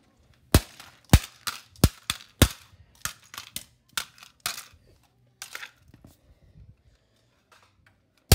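A plastic Logitech wireless computer mouse being smashed with repeated sharp blows. There are four hard hits in the first two and a half seconds, then a string of lighter knocks, a pause, and one more hard hit at the very end.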